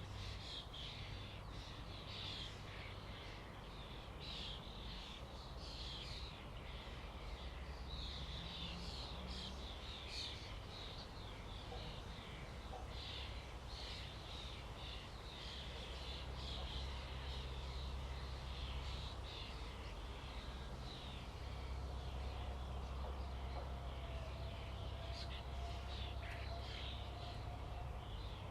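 A flock of starlings chattering without pause, many birds calling over one another in a dense mass of short, high, squeaky notes. A steady low rumble runs underneath.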